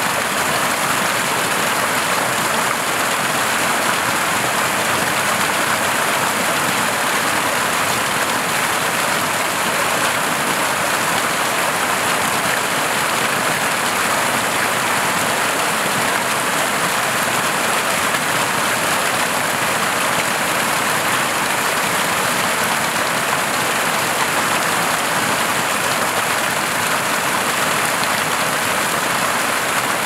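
Steady rush of running water from a stream, even and unbroken.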